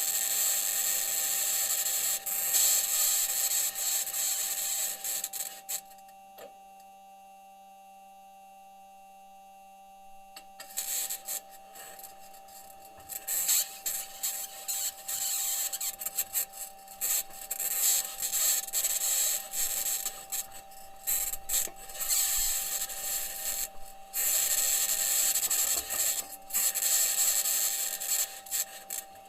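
Perseverance Mars rover's microphone recording of the rover driving: its metal wheels grinding, scraping and rattling over rock, with a steady faint tone underneath. The scraping drops away for a few seconds near the first third and then resumes.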